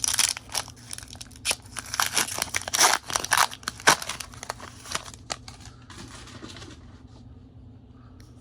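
Foil Pokémon booster pack being torn open and its wrapper crinkled: a dense run of crackling rips and rustles for about four seconds, then quieter handling of the cards, over a faint steady low hum.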